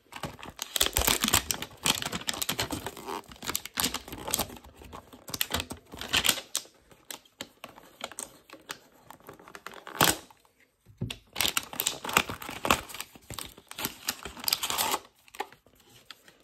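Plastic shrink wrap crinkling and tearing as a cardboard card box is unwrapped and slit open with a folding knife, a dense run of crackles and clicks with a sharp click about ten seconds in.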